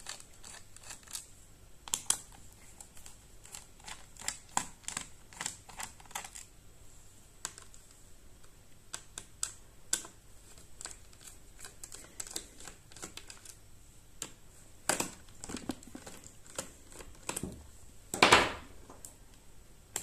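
Small screwdriver loosening the Phillips screws of a laptop's bottom cover, making a run of small irregular clicks and ticks as the tip works in the screw heads. About two seconds before the end there is a louder, brief rubbing rustle.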